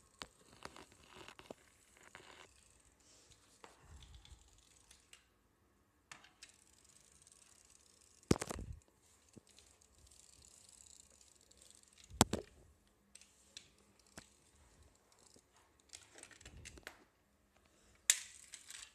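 A die-cast toy car being handled and pushed across a hard countertop: faint rubbing and rustling, with three sharp knocks about eight, twelve and eighteen seconds in, the last the loudest.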